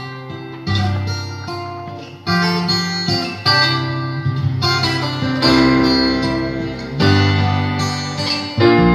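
Recorded acoustic guitar music playing a slow instrumental intro, with a new chord struck every second or two over a held bass line.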